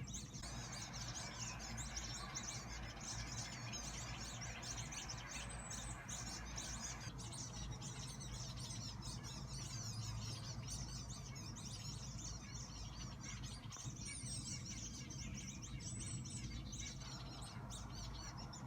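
Many small birds chirping continuously in a dense, overlapping chorus of short high notes.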